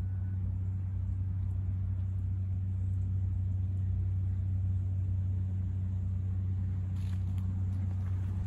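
A steady low machine hum that holds one pitch and never changes in level, with a few faint ticks near the end.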